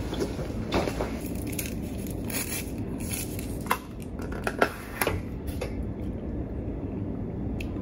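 Handling noises: a backpack being opened and rummaged, then a plastic straw jabbed down through the lid of a plastic juice cup, giving a few sharp clicks and crackles over steady low room noise.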